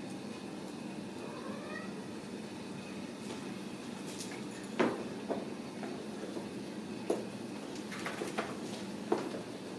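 Ragdoll kittens playing: a faint rising mew about a second in, then a handful of sharp taps and knocks as they scramble among toys and cardboard scratchers on a tile floor, over a steady low hum.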